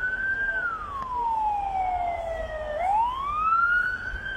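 Emergency vehicle siren wailing as another emergency vehicle approaches: one tone sliding slowly down for about two seconds, then rising again near the end.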